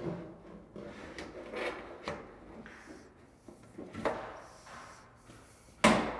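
Sheet-metal parapet coping cap being slid and scraped into place over the wall top and its front cleat: a few short rubbing, scraping sounds, then one sharp knock near the end, the loudest sound.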